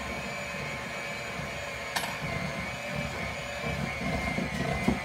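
Electric hand mixer running with a steady motor whine, its beaters churning a thick cream cheese, butter and powdered sugar mixture in a glass bowl. A brief tick sounds about two seconds in.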